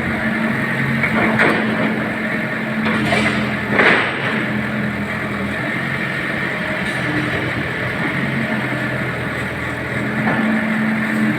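Caterpillar 313B CR excavator's diesel engine running steadily, with a few short knocks while it works, the loudest about four seconds in.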